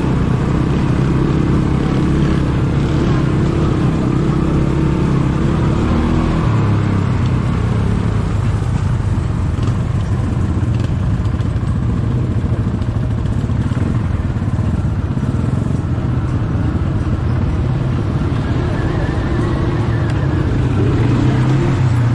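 ATV engine running steadily under way, with a shift in its pitch about six to seven seconds in.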